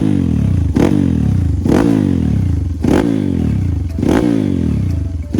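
Bored-up Kawasaki KLX150 single-cylinder engine revved in repeated throttle blips, about five in a row, roughly one a second. The revs fall back after each blip before the next.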